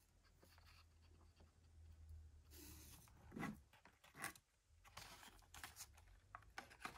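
Near silence, with faint scattered rustles and a few light knocks as blister-carded diecast cars are handled and stacked. The loudest knock comes about halfway through.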